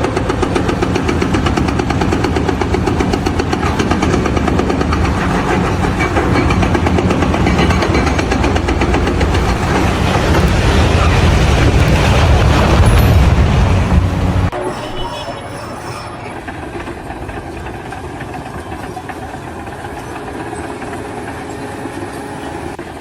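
Loud, continuous mechanical rumble of heavy machinery, growing louder toward about 13 s. At about 14.5 s it gives way abruptly to a quieter, steady machine noise.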